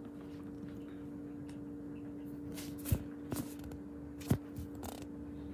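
Quiet kitchen room tone with a steady low hum and a few short, scattered knocks and clicks.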